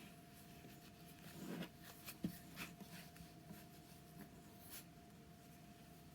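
Faint rustling and a few soft taps of hands working yarn while tying a knot, over a faint steady high hum.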